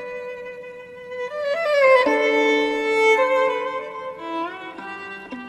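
Music: a slow melody on a bowed string instrument, with notes sliding into one another and two notes held together about two seconds in.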